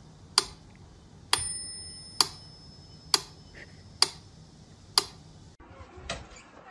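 Clock-like ticking: six sharp ticks, a little faster than one a second, with a thin high ringing tone after the second tick. The ticking stops about a second and a half before the end.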